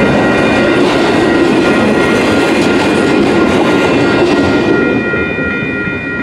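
Tail end of a Union Pacific mixed freight train passing over a grade crossing, its wheel and car noise dropping off about five seconds in as the last car clears. Steady high tones from the crossing signal's bell carry on underneath.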